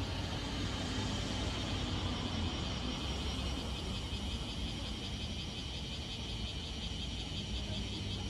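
Steady running noise of a vehicle: a low rumble under a constant high hiss.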